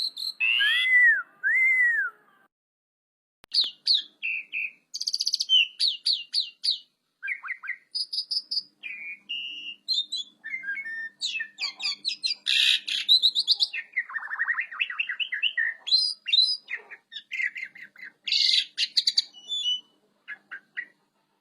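Pied starling (jalak suren) singing a long, varied song. It opens with two clear, arched whistles, pauses briefly, then runs into a fast string of chirps, whistles and harsh rattling notes.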